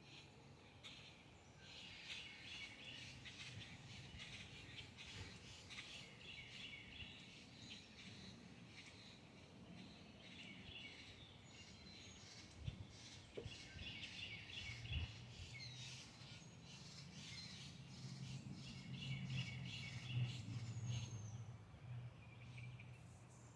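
Birds chirping in quick, repeated runs of high notes, over a low steady hum, with a couple of faint knocks.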